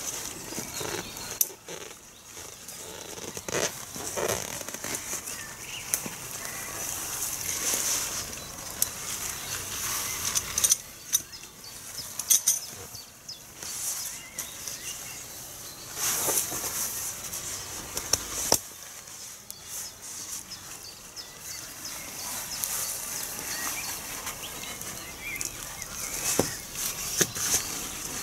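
Alpkit Soloist tent's flysheet rustling as it is pulled into shape and pegged out, coming and going, with scattered sharp clicks and knocks from the tent pegs being handled and pushed in.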